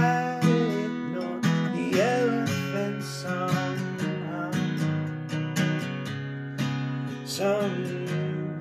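Acoustic guitar strummed in an instrumental break between sung verses of a song.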